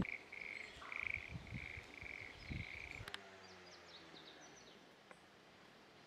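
A frog calling: a series of about five evenly spaced croaking notes over the first three seconds, with wind buffeting the microphone. After a sudden cut, faint outdoor ambience with a bird twittering faintly.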